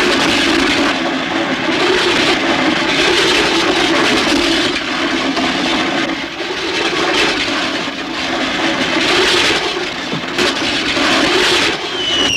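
Fairground ride spinning at high speed: a loud, steady rushing roar that swells and dips every few seconds.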